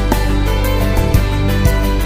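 Background music: a cinematic instrumental track with sustained pitched notes over a steady bass and a regular beat.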